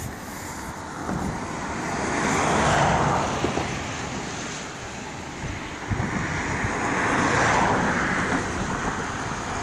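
Road traffic passing on a bridge: the tyre and engine noise of two vehicles swells up and fades, peaking about three seconds in and again about seven and a half seconds in.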